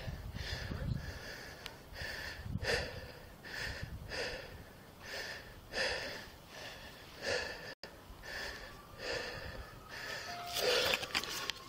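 A man breathing hard and fast right at the microphone, about one heavy breath a second.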